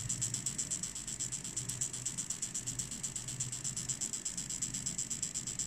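Homemade 555-timer machine-gun sound circuit firing a rapid, evenly spaced stream of sharp clicks through its small speaker, with a low hum underneath.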